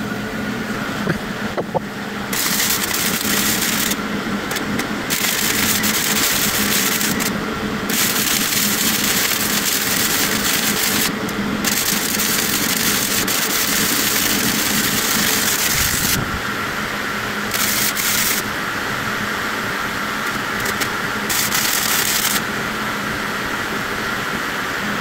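Electric arc welding on steel: the arc crackles and sizzles in runs of a few seconds, breaking off briefly several times as the weld is stopped and started again. A steady low hum runs underneath.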